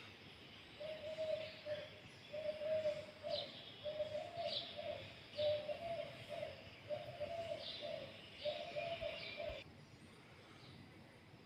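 A dove cooing: about six repeated phrases of about a second each, with a few short high bird chirps over them. The calling stops abruptly near the end.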